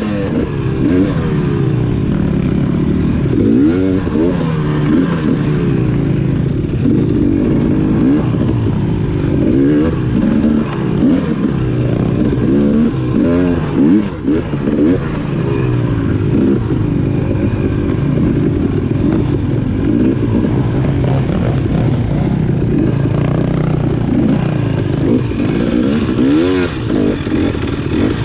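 Off-road dirt bike engine running hard under constant throttle changes, its pitch rising and falling every second or so.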